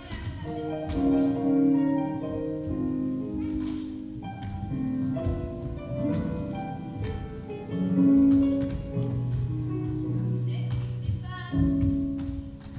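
Instrumental classical-style music with a melody of held and short notes.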